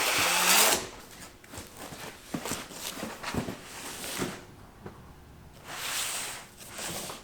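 Cardboard packaging being opened and handled. A loud scraping rustle of cardboard comes in the first second, followed by scattered knocks and clicks and two softer rustles later on.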